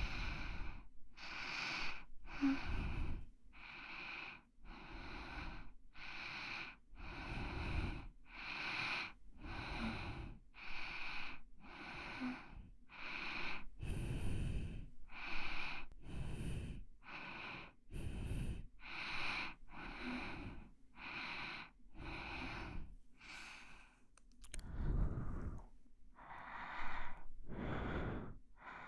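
Close-miked ASMR breathing: a person breathing audibly in and out right at the microphone, in an even rhythm, each inhale and exhale lasting about a second.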